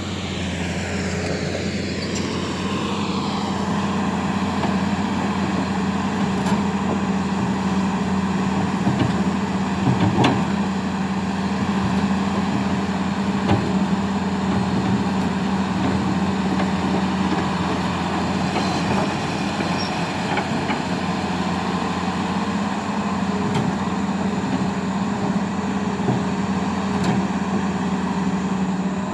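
Hitachi hydraulic excavator running steadily under work, with a low engine hum throughout. A whine falls in pitch over the first few seconds, and there are a few scattered knocks.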